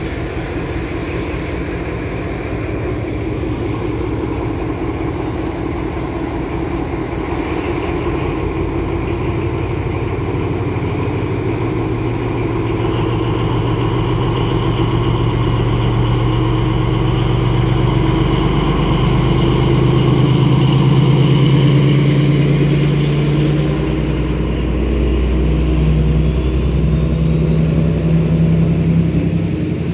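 MÁV M41 diesel-hydraulic locomotive's engine running under load as it pulls a passenger train away, growing louder toward the middle as it goes past. A high whine sits over the engine note through the middle.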